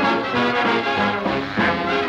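Background music: a swing-era orchestra with brass plays an instrumental passage in short, stepping notes, just after the sung line of the song ends.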